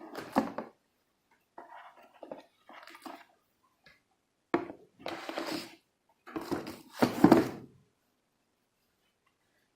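Clinks, knocks and rustling as PC parts are handled while a motherboard is readied to go into the computer case, in several irregular bursts with the loudest clatter about six to seven seconds in.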